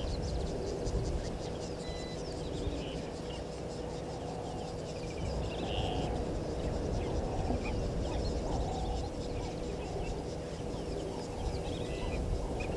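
Outdoor bush ambience: birds calling with scattered short chirps over a low rumbling background noise. A rapid, even ticking sounds high up for the first few seconds and then fades, and a faint steady hum runs underneath.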